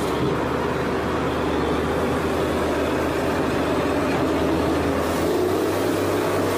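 A vehicle engine running steadily: an even, low drone with no revving or change.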